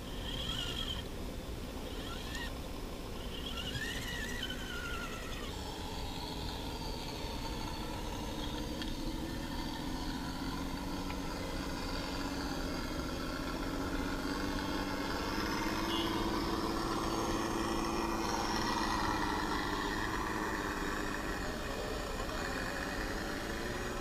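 Electric motors and geared drivetrains of RC scale crawler trucks whining, the pitch slowly rising and falling with the throttle.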